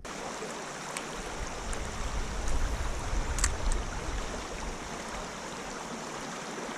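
River water running steadily, an even rushing hiss, with a couple of faint ticks.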